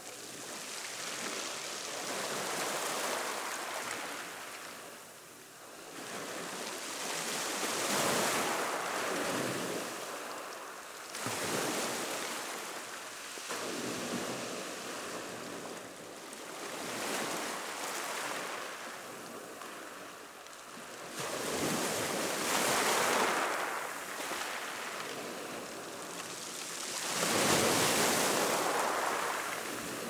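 Choppy sea washing up onto a shore. The rushing wash swells and falls back in repeated surges a few seconds apart.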